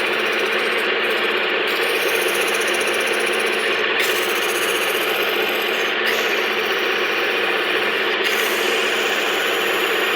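A machine running steadily with a constant rattle.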